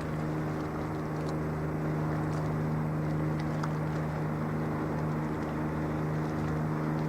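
Steady low drone of a ship's engine, an unchanging hum with a strong low tone and its overtones, under a wash of wind and water hiss.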